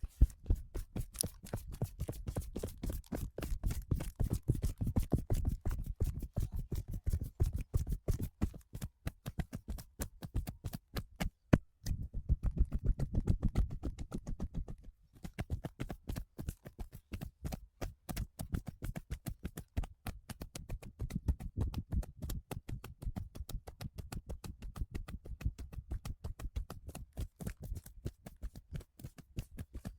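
Fast, rhythmic slapping and tapping of hands on a body: percussive massage strokes, many strikes a second, with two short pauses midway.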